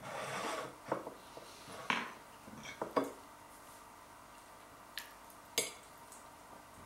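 Metal fork scraping and clinking against a plate as pancakes are cut, in a short scrape followed by several separate sharp clinks.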